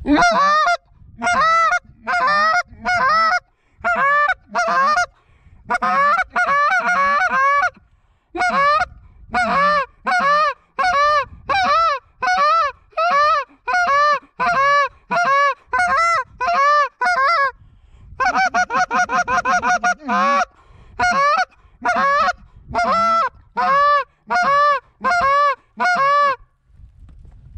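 Hand-blown goose call: a long series of honks and clucks, each note breaking up and then down in pitch, about two a second in short bouts. About eighteen seconds in comes a quick run of rapid clucks, a feeding chuckle.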